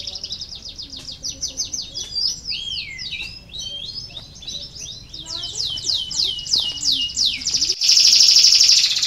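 Domestic canaries singing: quick runs of repeated chirps and sweeping whistled notes, then a louder, fast rolling trill from about eight seconds in.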